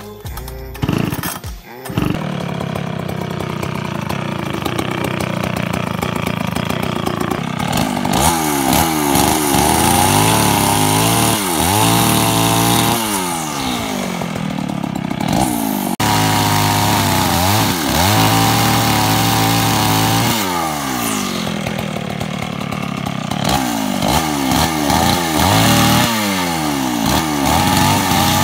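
A Jonsereds 1020 two-stroke chainsaw being pull-started: it catches about two seconds in and runs steadily at idle, then from about eight seconds on it is revved up and down over and over.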